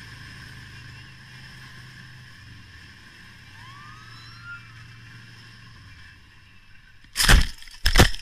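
Motorcycle engine running steadily in traffic, then two loud crashing impacts near the end, about a second apart, as the motorcycle goes down.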